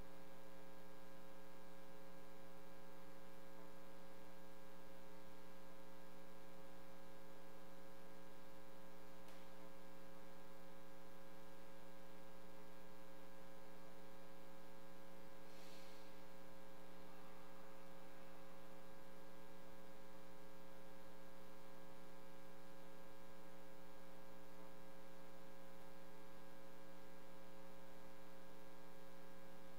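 Steady electrical mains hum in the audio feed: several unchanging tones over a constant low buzz. There is a faint, brief rustle about halfway through.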